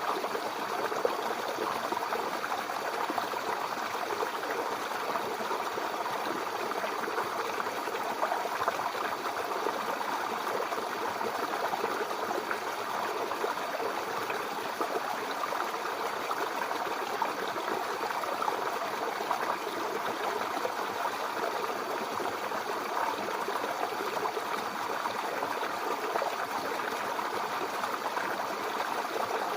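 Small brook babbling and trickling over stones, a steady burble of running water.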